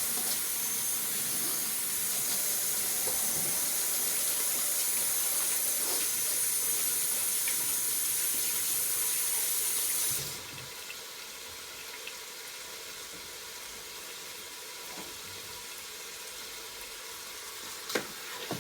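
Kitchen tap running in a steady stream for about ten seconds, then shut off abruptly, over the steady sizzle of raw chicken pieces browning in oil in a multi-cooker on its sauté setting. A couple of short clicks come near the end.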